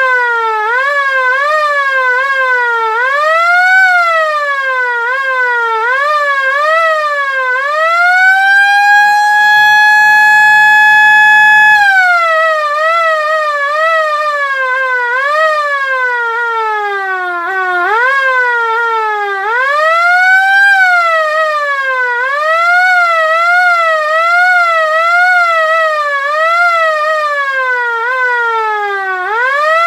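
LK-JDW105 air raid siren sounding loudly, its tone sweeping up and down in pitch about once a second. About eight seconds in it climbs to a steady held tone for some four seconds, then falls away slowly before the quick up-and-down sweeps start again.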